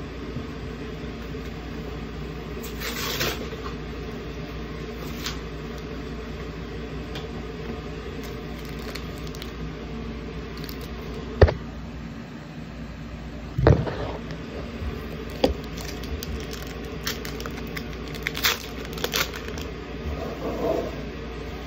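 Foil Pokémon booster packs and trading cards being handled: scattered crinkles, rustles and a few sharp clicks, over a steady background hum.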